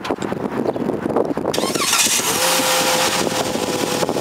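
A 2013 Chrysler Town & Country's 3.6-litre V6 started by the key fob's remote start: it comes to life suddenly about a second and a half in and settles into a steady idle.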